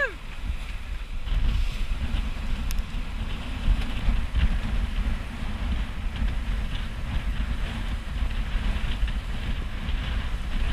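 Wind buffeting the microphone as a sailing yacht drives through the sea, with water hissing and rushing along the hull; a steady low rumble runs under the hiss.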